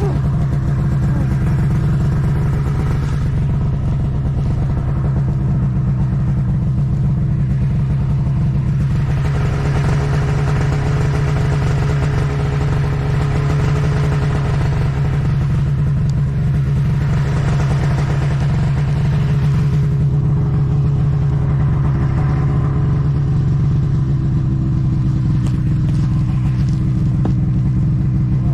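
Snowmobile engine running steadily, its pitch shifting slightly up and down, then dropping at the very end.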